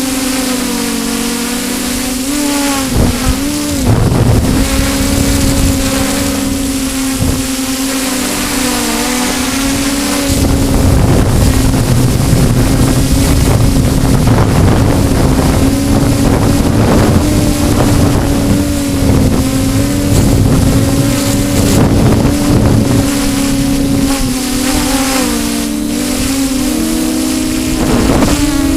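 Drone's motors and propellers whining at a steady pitch that wavers up and down as they hold it in gusty wind. Wind buffets the microphone, heavier from about ten seconds in.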